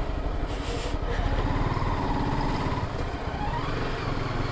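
Honda sport motorcycle's engine running steadily at low road speed, heard from the rider's position with some wind and road noise.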